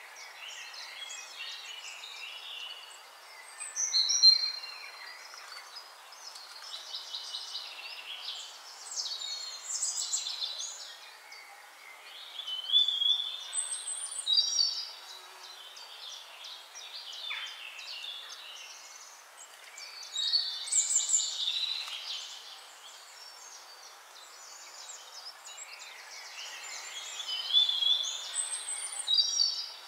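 Birds chirping and singing in short high phrases every few seconds, over a steady hiss.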